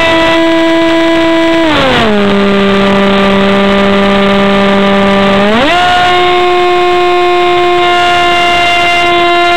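Electric RC plane's pusher propeller and motor whining loudly, close to the onboard camera. The pitch drops as the throttle is eased back about two seconds in, holds lower, then rises again as the throttle is opened up about five and a half seconds in.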